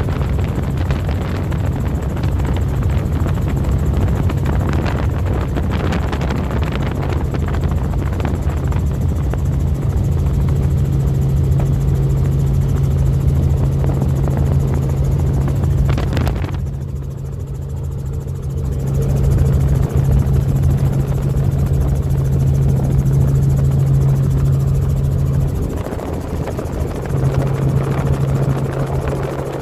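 Helicopter engine and rotor noise heard from inside the cabin: a loud, steady drone with a strong low hum and a rushing hiss on top. The hiss drops away briefly about two-thirds of the way through, then returns.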